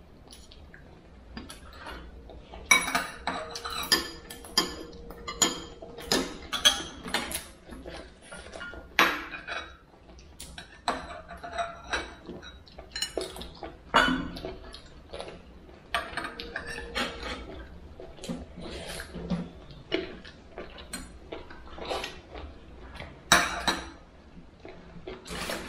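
Spoons and other cutlery clinking and scraping against bowls and plates as people eat, in irregular sharp clinks that come thick and fast at times and thin out at others.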